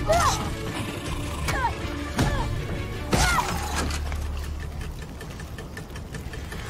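Film soundtrack: tense music over a low steady rumble, broken by sudden crashes and short shrill screeches near the start, about two seconds in and about three seconds in, then thinning out.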